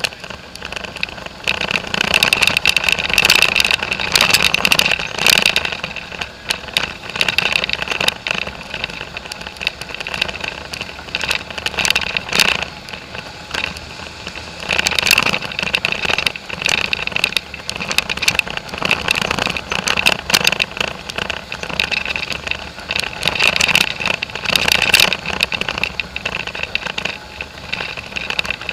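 Polaris four-wheeler's engine running as it drives over a rough dirt trail, uneven in loudness, with many short knocks.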